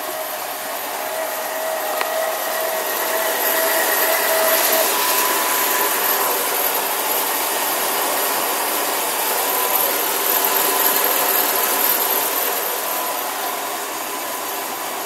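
Electric lift motor of a boat's power engine hatch running as the hatch rises: a steady whirring whine whose pitch steps up about five seconds in.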